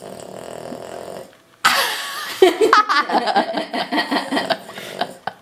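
A Boston terrier snores once, a short breathy snore. Then, about a second and a half in, a person laughs loudly in quick repeated bursts for several seconds.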